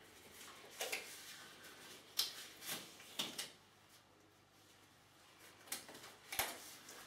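Disposable gloves being pulled on over the hands: a string of short rustles and snaps, about six in all.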